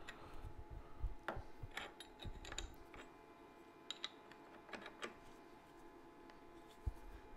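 Faint, scattered clicks and clinks of the independent steel jaws of an Ampogrip machinist's vise being pushed by hand around a workpiece.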